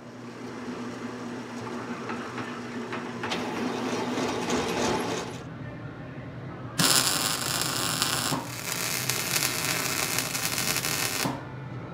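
MIG welder arc running on a steel hitch frame: a loud, dense hiss that starts suddenly about seven seconds in and cuts off about four and a half seconds later. Before it comes a quieter, steady hum.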